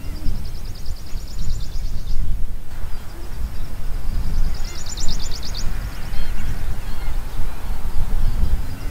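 Low rumble of wind buffeting the microphone outdoors, with a high, rapid animal trill heard twice, about four seconds apart.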